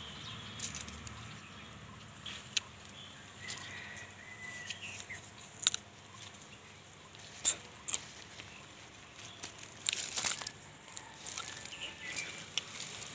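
Scattered crackles and sharp clicks of footsteps and dry plants rustling, loudest in a cluster about ten seconds in, with a faint short bird chirp about four seconds in.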